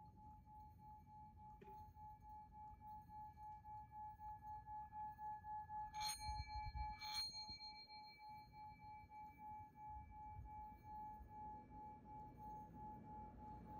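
Quiet meditative sound-healing tones: a steady bell-like tone pulsing gently. A soft strike comes about a second and a half in, and two brighter, glassy chime strikes come around six and seven seconds in, ringing out slowly.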